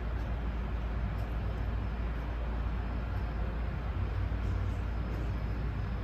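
Steady low hum with an even hiss and no distinct events: background room or machine noise.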